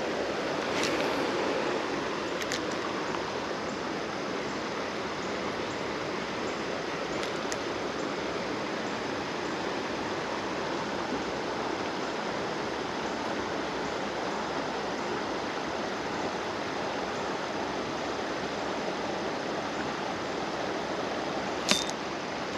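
Steady rush of a creek's flowing water, with a few faint clicks.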